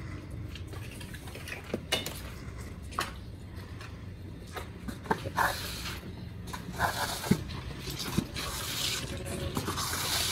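Floor squeegee with a rubber blade pushing water across a wet concrete floor: uneven wet scraping and swishing, heavier in the second half, with scattered light knocks and clicks from the handle and blade.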